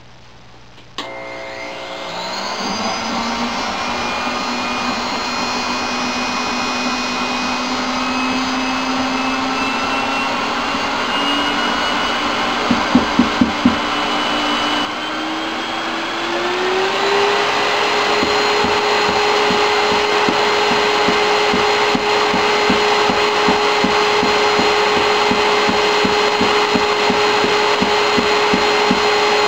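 Electric suction fan of a home-built wet scrubber starting up and drawing air through its salt-water tanks: it spins up about a second in, its whine climbs in pitch in two steps, then runs steadily with a hum. A quick run of sharp clicks comes about halfway through.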